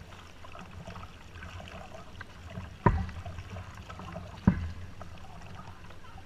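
Canoe paddles dipping and pulling through canal water, with trickling and dripping. Two sharp knocks of a wooden paddle striking the canoe's side come about three and four and a half seconds in.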